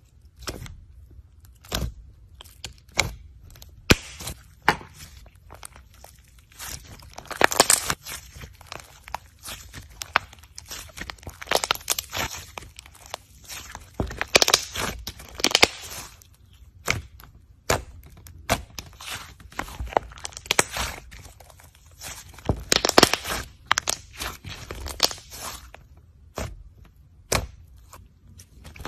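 Hands pressing, poking and squeezing slime, making irregular wet pops, crackles and clicks that come in dense clusters.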